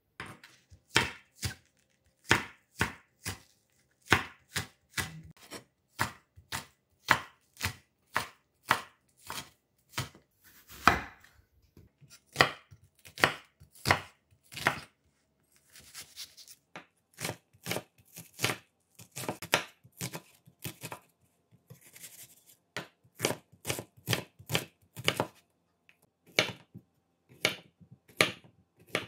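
Chef's knife chopping an onion on a wooden cutting board: a run of sharp knocks of the blade against the board, about two a second, with short pauses between runs.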